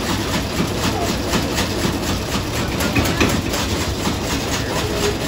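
Large Bessemer stationary oil engine with a heavy flywheel running at a steady pace, with an even, regular beat.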